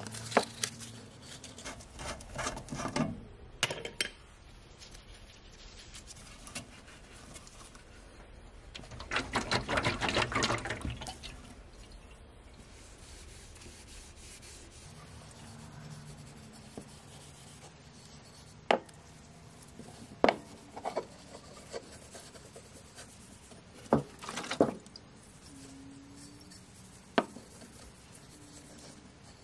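A cloth rag rubbing boiled linseed oil into a hickory hammer handle. The rubbing grows louder for a couple of seconds about nine seconds in, and a few sharp taps are scattered through.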